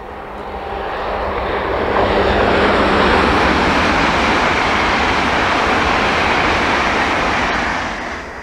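High-speed passenger train passing at speed: a rushing of wheels on rails and air that swells over the first two seconds, holds steady, then falls away near the end.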